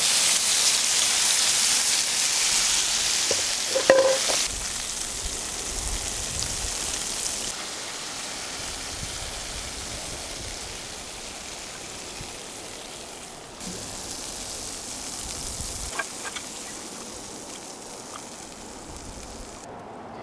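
Food sizzling and frying in a pan over a campfire, a steady hiss that is loud at first and grows quieter. A short clink is heard about four seconds in.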